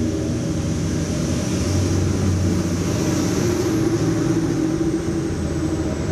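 Steady low background rumble with a hiss over it, like distant road traffic.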